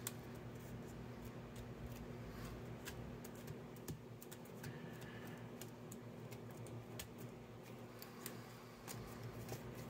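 Faint, scattered taps and rustles of cardstock being pressed down with the fingers and handled, over a steady low hum.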